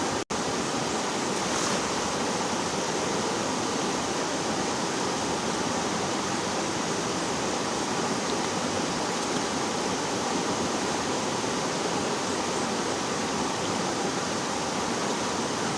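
Steady rushing of flowing water, even and unbroken, with a momentary dropout just after the start.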